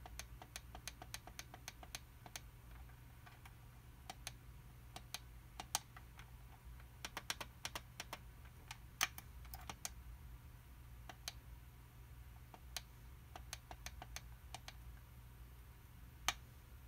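Small plastic push buttons on a SkyRC MC3000 battery charger clicking as they are pressed over and over to step through its setup menu. The clicks come in quick runs, the fastest in the first two seconds or so, with pauses between the runs.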